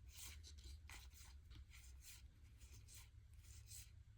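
Faint, soft swishes of baseball trading cards sliding against one another as a pack is flipped through card by card, a few strokes a second over a low room hum.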